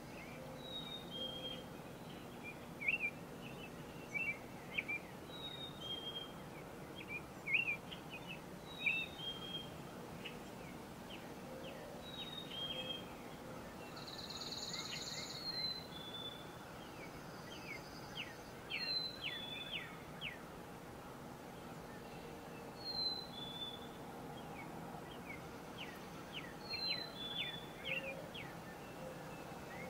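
Several songbirds singing in a woodland chorus: a clear two-note whistle, the second note lower, repeats every few seconds over quicker chirping phrases, with one brief buzzy call about halfway through. A steady faint rumble of background noise lies underneath.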